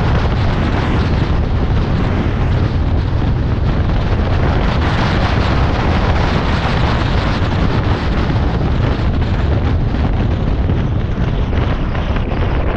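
A car driving at steady road speed: loud, steady wind rumble on the microphone over road and tyre noise.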